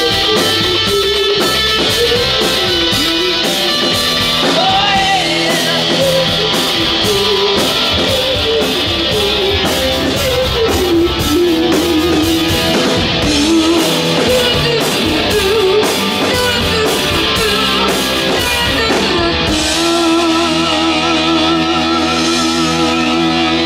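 Live rock band playing: an electric guitar lead with bent notes over bass and drums with steady cymbal strokes. About twenty seconds in, the drums stop and a single long note is held with vibrato over a sustained chord.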